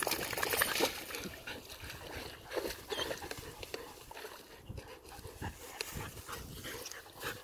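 Wet Belgian Malinois shaking water from its coat, a crackly flapping burst lasting about a second near the start. After it come faint rustles as the dog moves through long grass.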